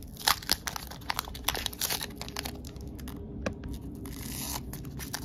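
A foil Pokémon booster pack being torn open and its wrapper crinkled: a string of sharp crackles and rustles, one louder crack about a third of a second in.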